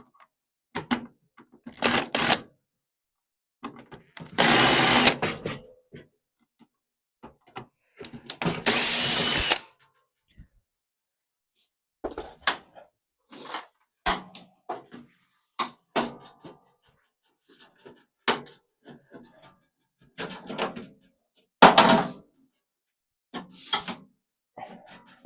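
A power drill-driver runs in two short bursts of about a second each, backing screws out of a microwave's panels. Scattered clicks and knocks from parts being handled follow.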